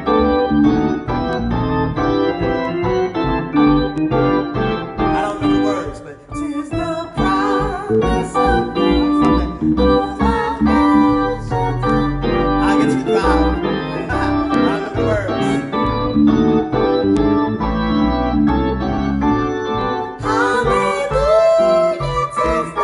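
Electric keyboard played with an organ sound: sustained chords over a bass line. A man's voice sings over it at times.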